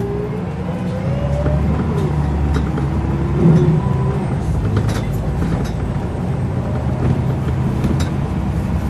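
Scania L94UB bus pulling away under power, its ZF automatic gearbox whining as the revs rise, dropping as it changes up about a second and a half in, then rising again. Short clicks and rattles come through throughout.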